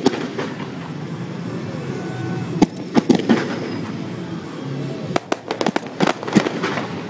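Mid-level fireworks display firing: sharp bangs and pops from comets and mines launching. A few come singly in the first half, then a rapid cluster near the end, over a steady hiss from the ground fountains.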